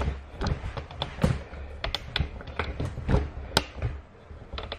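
Irregular light taps, clicks and knocks of cork floor planks being handled and fitted against each other, about a dozen over a few seconds.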